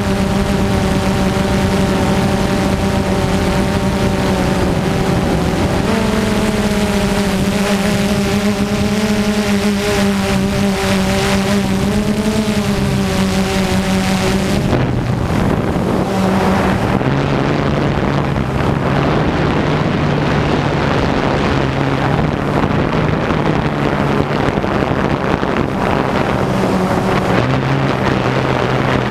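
Multirotor drone's electric motors and propellers humming steadily, recorded on board, with wind noise on the microphone. About halfway through the hum drops to a lower pitch and the wind rush grows.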